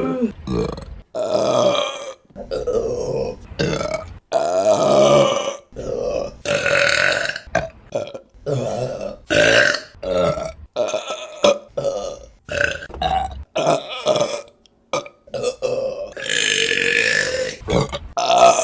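Women burping: a run of loud burps from different people, one after another, each cut off abruptly and followed at once by the next. Some are long and drawn out.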